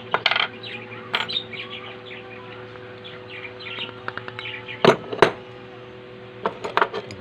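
Sharp metal clicks and knocks of hand tools on the sewing machine's parts as the clutch is taken apart, the loudest a pair about five seconds in, with another cluster near the end. Small birds chirp steadily in the background over a steady electrical hum.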